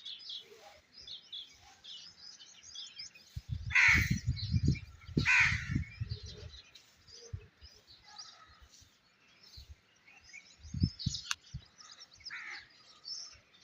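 Outdoor birdsong: many small birds chirping throughout, with two loud, harsh cawing calls about four and five and a half seconds in and a fainter one near the end. Low thuds on the microphone come with the loud calls and again about eleven seconds in.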